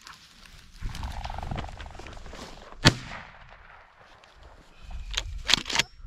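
Hunting shotgun fired once about three seconds in, a single sharp crack with a short echo. A quick cluster of sharp cracks follows near the end, nearly as loud as the shot.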